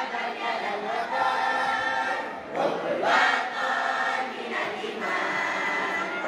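A large crowd of students singing together in unison, holding long notes.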